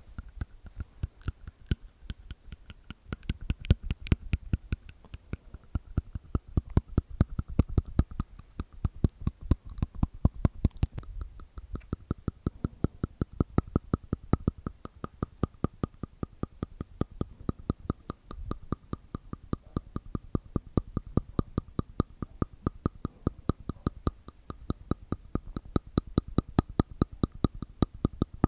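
ASMR mouth sounds recorded close to the microphone: rapid wet tongue and teeth clicks, several a second without a break.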